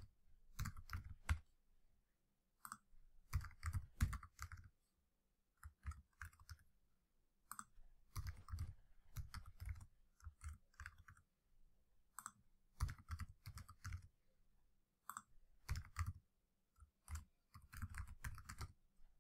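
Computer keyboard being typed on, faint keystrokes in short bursts with brief pauses between them.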